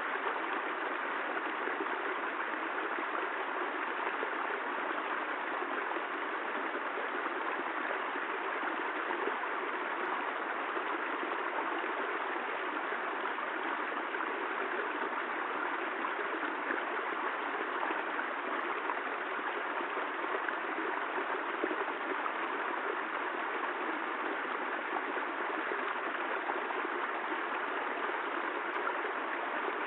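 Steady heavy rain: an even, unbroken rushing hiss with no single drops or thunder standing out.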